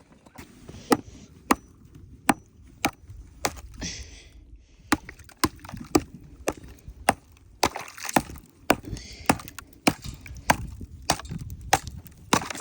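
Repeated sharp blows of a hand tool chopping and breaking frozen-solid ice in an animal water trough, about two strikes a second.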